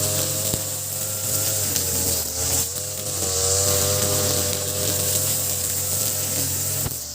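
Ogawa BG330 33cc two-stroke brush cutter, fitted with a larger 43cc carburettor, running at high revs with its pitch wavering, easing off briefly about two and a half seconds in and again near the end.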